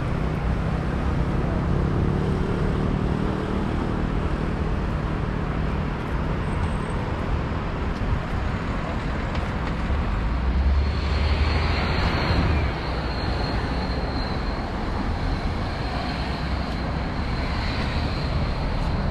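Road traffic passing: a steady wash of engine and tyre noise, with one louder vehicle rumbling past about eleven seconds in and a thin high whine holding for several seconds after.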